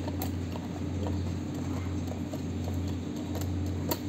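A hand band-clamp tightening tool clicking and tapping as a metal band is drawn tight around a high-pressure rubber hose at its coupling. A steady low hum runs underneath.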